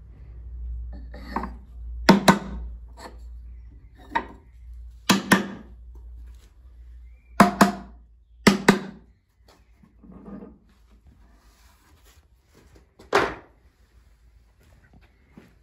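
A series of sharp wooden knocks, several in quick pairs, as the wooden wedges in the tenon joints of a hand-mill's wooden stand are struck; one last single knock near the end.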